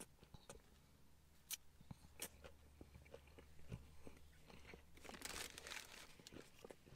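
Faint close-up chewing of a mouthful of steak sandwich, with small wet mouth clicks scattered throughout. About five seconds in, the sandwich's paper wrapping rustles briefly as it is handled.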